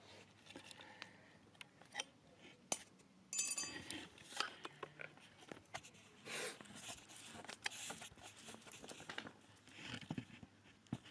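Beagle sniffing right up against the microphone: a string of short, irregular sniffs and snuffs, with a few sharp clicks, coming thicker from about three seconds in.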